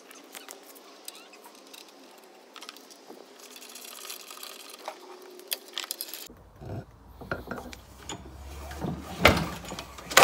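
Scattered light clicks and clatter of handling noise, with two louder knocks near the end.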